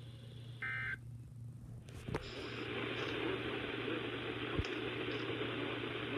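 Weather radio receiver: a brief two-tone electronic data burst just under a second in, then a click about two seconds in, after which steady radio static hiss fills the rest.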